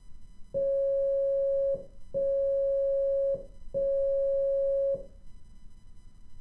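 Morse code tone: three long steady beeps of equal length, each a little over a second, with short gaps and a small click at each start and stop. Three dashes, the letter O.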